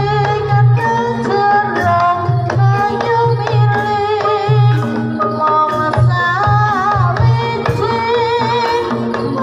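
Jaranan accompaniment music, loud and continuous: a steady drum beat under a melody line that holds notes and bends between them.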